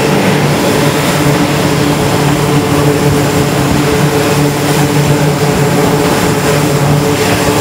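F/A-18 jet engines running loud and steady: a dense rush of noise with a steady low hum beneath it.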